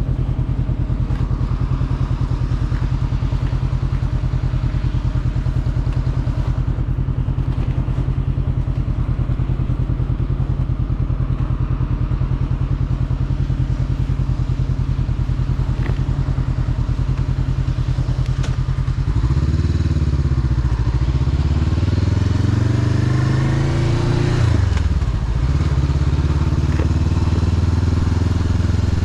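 Motorcycle engine running while riding at a steady pace. About two-thirds of the way in, the engine pitch rises and falls through a few gear changes, then settles at a new steady note.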